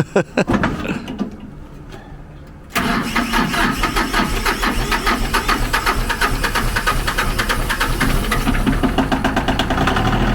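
Ford 1520 tractor's three-cylinder diesel being cranked over by the starter on its first startup, with rapid even pulses starting suddenly about three seconds in. It catches near the end and settles into a steady idle.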